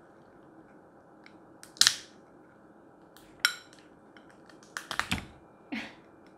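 Steamed rock lobster shell being cracked and pulled apart by hand: a few sharp cracks and snaps, the loudest about two seconds in and a quick cluster about five seconds in.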